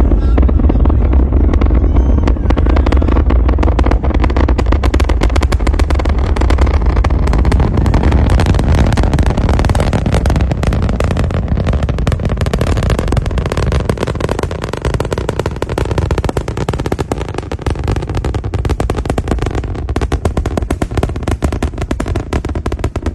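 SpaceX Starship launch: the Super Heavy booster's Raptor rocket engines make a deep rumble laced with dense, rapid crackling. The sound eases somewhat about halfway through.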